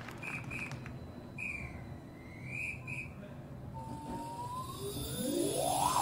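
Whistle-like sound effects in a quiet passage of a marching band show: pairs of short high beeps, a tone that dips and climbs back up, then several tones sliding upward together near the end.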